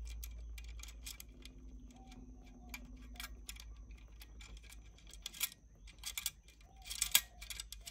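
Small nut and lock washer being turned by hand onto a bolt through a thin metal bracket: a scattered run of faint, light metallic clicks and ticks, busiest over the last few seconds.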